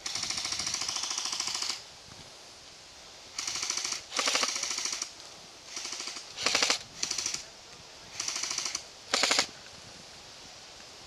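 Airsoft electric guns firing full-auto bursts: about eight bursts of fast, rattling shots, the first nearly two seconds long and the rest shorter, with short pauses between and some bursts louder than others.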